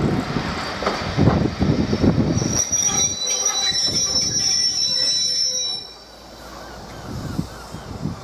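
Passenger train running into a station platform: heavy rumbling at first, then wheels and brakes squealing in a steady high whine for about three seconds, after which the noise drops away suddenly.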